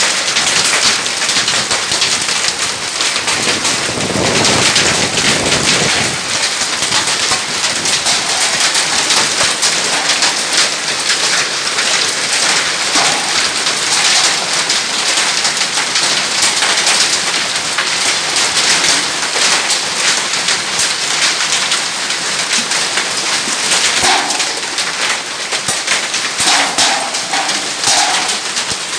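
Heavy hail pelting corrugated roofing sheets: a dense, unbroken clatter of countless small impacts. A low rumble swells briefly about four seconds in.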